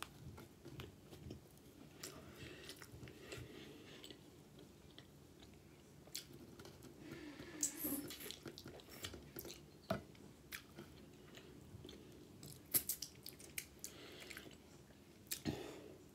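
Faint chewing and biting on chicken wings, with scattered soft clicks and smacks.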